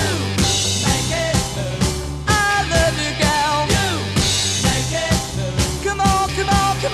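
1960s British beat-group rock recording: a steady drum beat of about two strokes a second under bass, guitar and singing voices.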